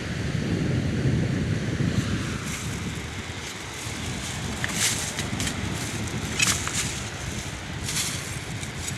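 Wind buffeting the microphone on the shore at low tide, with a few short crunching crackles about halfway through and near the end.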